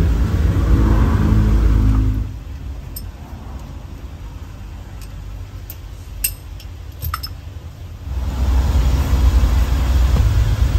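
Low vehicle rumble that drops away after about two seconds to a quieter stretch with a few light metallic clicks, then returns about eight seconds in.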